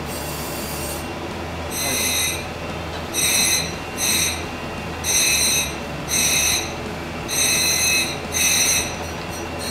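Grinding wheel of a Kuroda Seiko GS-BM3 surface grinder being dressed, the diamond dresser passed back and forth across the spinning wheel. Seven short high-pitched screeches, one per pass, sound over the machine's steady hum.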